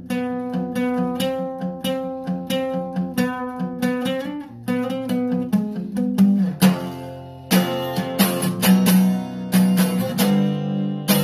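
Acoustic guitar played solo: chords picked out note by note, then one chord left to ring out, then strummed chords in the last few seconds.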